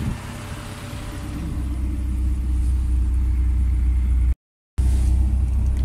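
A vehicle's engine and road rumble heard while it is being driven, swelling as it picks up speed about a second and a half in. The sound cuts out completely for about half a second near the end, then resumes.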